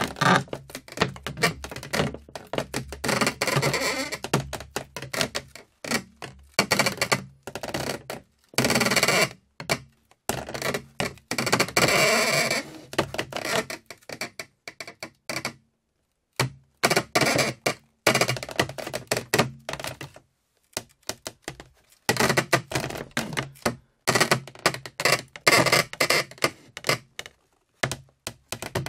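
Wood creaking and cracking: clusters of short creaks and sharp clicks with brief pauses between them, some stretches drawn out into a scraping squeak.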